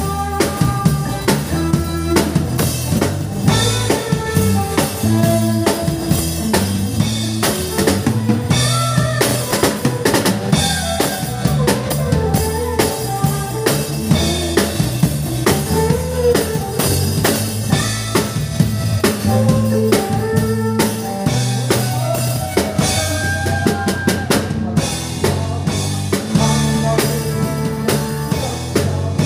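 Live band music: a drum kit played with sticks, bass drum, snare and cymbals keeping a steady beat, under bass guitar notes and a melody line.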